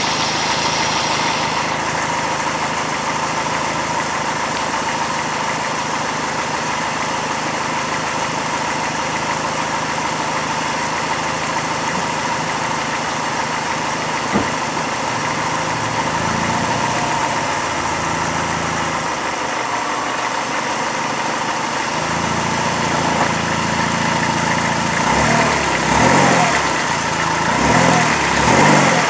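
Chrysler PT Cruiser's four-cylinder engine idling steadily, then revved up and down a few times near the end. The car has a bad motor mount.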